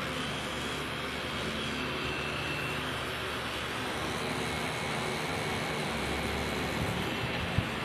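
Tattoo machine buzzing steadily as the needle works ink into skin, with one sharp click near the end.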